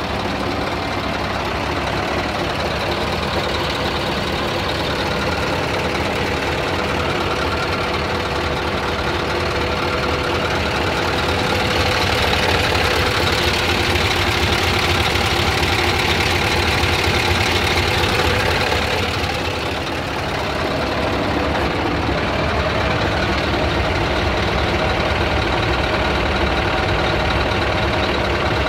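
Scania R truck's diesel engine idling steadily, louder for several seconds in the middle, with a short dip just after.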